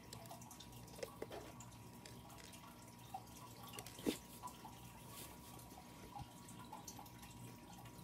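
Small, light plastic clicks and taps of perler beads being set onto a clear plastic pegboard, scattered and irregular, the sharpest about four seconds in, over a faint steady hum.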